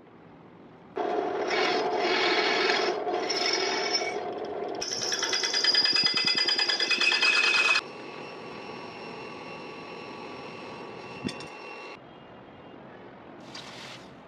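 Drill press bit grinding and rasping against the hardened steel of a cleaver blade, which is too hard to drill until it is normalized; the rasping gets louder and harsher, then cuts off abruptly. A quieter steady hum follows, and near the end comes a short hiss as the hot blade goes into the quench.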